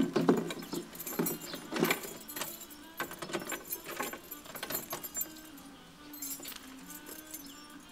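Clinking and clattering of small hard objects being handled: a loud knock at the start, then a run of short clicks and jingles that thins out after about five seconds, with a faint steady tone underneath in the later part.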